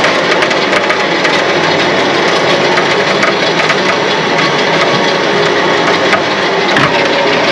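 Winch steadily pulling a 1983 Nissan 720 pickup up onto a flatbed car trailer, its motor running without a break. Mixed in is the scraping of the truck's rear wheel dragging instead of rolling.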